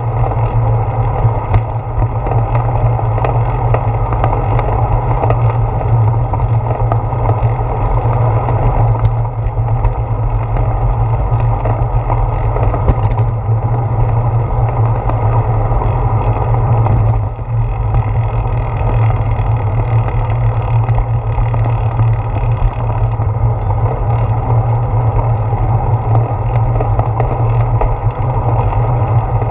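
Steady rumble of wind and road vibration picked up by a handlebar-mounted GoPro as the bicycle rides along, dipping briefly a little past halfway.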